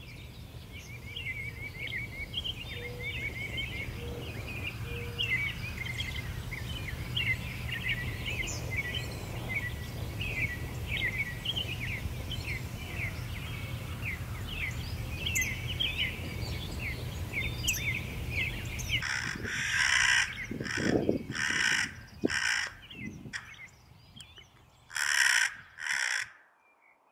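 Small birds twittering in quick high chirps over a steady low rumble; after about 19 seconds this gives way to a hooded crow's series of loud, harsh caws, the last two near the end the loudest.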